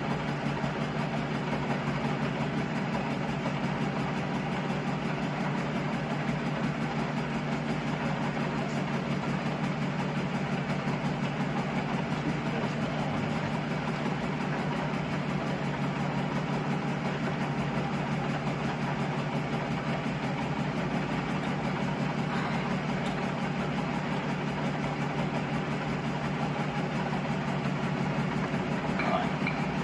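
Metal lathe running with a steady hum, its motor and drive at a constant speed, with a few light clicks near the end.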